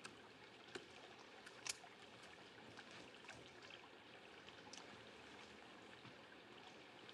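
Near silence: a faint outdoor hush with a few soft ticks, the clearest about a second and nearly two seconds in.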